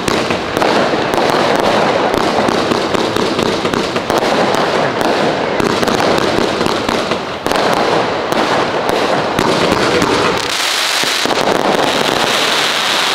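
Fireworks display going off in a dense, rapid barrage of bangs that blur into a continuous roar. About ten and a half seconds in, the deep booms stop and a high, hissing crackle carries on.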